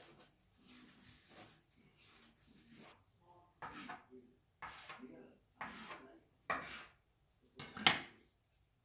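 Dough rubbing softly as it is rolled by hand on a granite countertop. Then a kitchen knife cuts the dough log into pieces: five short scraping chops, the blade meeting the stone, the last one the loudest.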